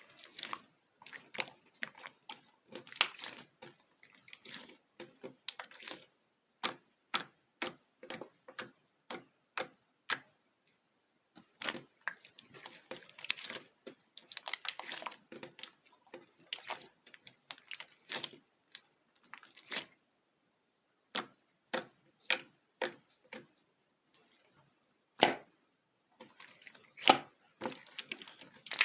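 Slime being pressed, folded and stretched by hand, giving irregular runs of sharp clicks and pops with softer squishing between them and a few short pauses.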